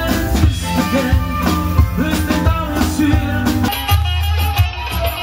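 Background music with a steady beat and drums. Just under four seconds in, the sound changes: the high end drops away and the bass grows heavier.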